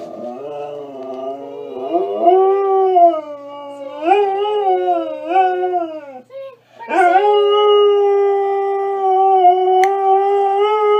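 Dog howling: a wavering howl whose pitch rises and falls for about six seconds, a brief break, then one long, steady howl held from about seven seconds in.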